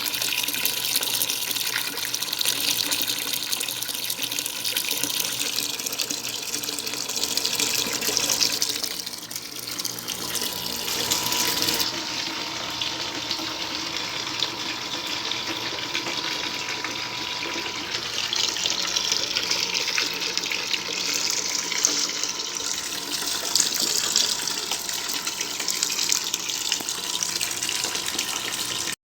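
Water spraying steadily from a shower head on the outlet of a tankless water heater running a hot-water test. The spray stops abruptly near the end.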